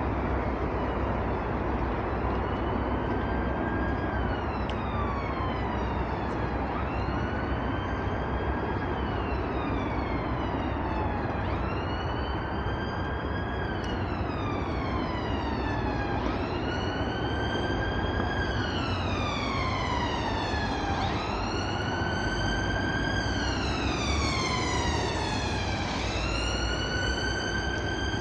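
Emergency-vehicle siren in a slow wail, its pitch rising then falling in cycles about every four to five seconds. It starts a few seconds in and grows louder toward the end, over steady background noise.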